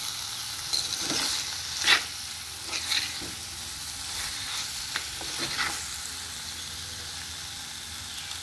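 Potatoes and sliced onions sizzling as they fry in oil in a pan, stirred with a metal spoon that scrapes the pan in a few short strokes, the loudest about two seconds in.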